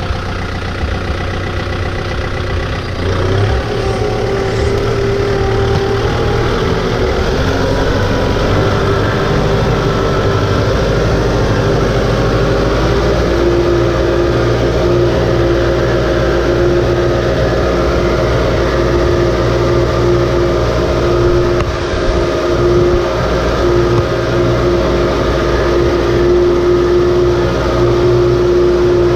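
Compact tractor's engine running under load as the tractor drives through a flooded paddy, its tyres churning muddy water. The engine picks up revs about three seconds in, then runs at a steady pitch.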